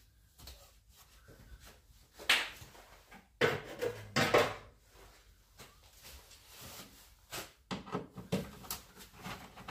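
Knocks, scrapes and rubbing of parts and tools being handled during dismantling work, with a few louder knocks about two, three and a half, and four seconds in.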